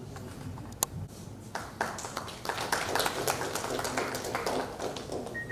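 Audience applauding in scattered, irregular claps that start about a second and a half in and thin out near the end, preceded by a single sharp click.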